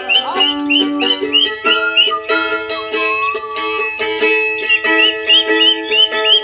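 Mandolin playing a fast plucked melody, with a duck calling along in short, repeated high notes, about three a second.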